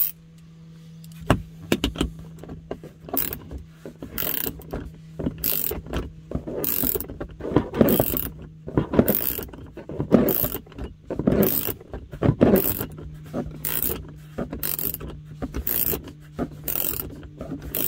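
Hand socket ratchet turning a tight speaker mounting screw, the pawl clicking in repeated strokes at about two clicks a second. The screw is still tight and not yet backing out.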